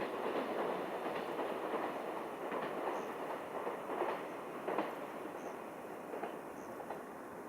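Freight train of loaded container wagons rolling past, wheels clacking over the rail joints at irregular intervals over a steady rolling rumble that fades as the train draws away.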